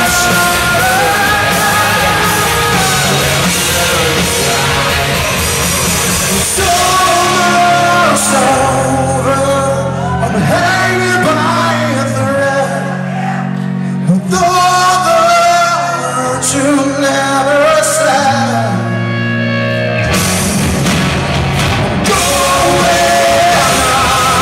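Live rock band with a male lead vocalist singing. About eight seconds in the band drops to a sparser passage of sustained low notes under the voice, and the full band comes back in near the end.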